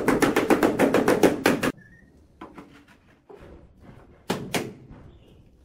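Rubber mallet tapping rapidly on a ceramic wall tile, about eight sharp taps a second, to seat the tile in its mortar bed. The tapping stops before two seconds in, followed by faint handling and scraping and two more knocks near the end.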